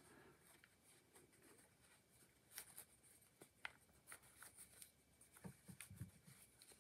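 Faint rustling of cloth and light scattered clicks as tight fabric pants are worked onto a plastic action figure's legs, with a few soft knocks in the second half.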